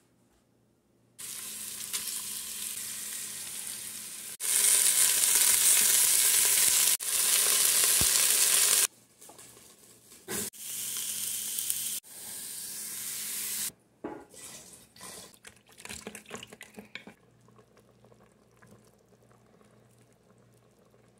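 Beef short ribs sizzling in hot oil as they brown in an Instant Pot's steel inner pot on sauté; the sizzle cuts off and restarts a few times. After about two-thirds of the way it gives way to scattered clicks and scrapes of tongs against the pot.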